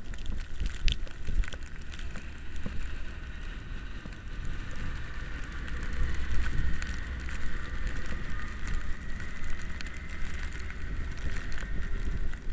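Electric bike riding through snow: wind buffeting the microphone in a heavy low rumble, scattered clicks and rattles, and a faint steady whine from the e-bike's motor, clearest in the middle.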